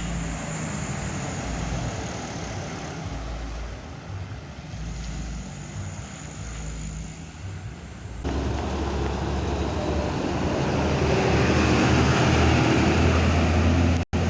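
Road traffic: a heavy vehicle's engine rumbling at a distance, then, after an abrupt change about eight seconds in, a louder heavy vehicle passing close, its engine and road noise swelling toward the end.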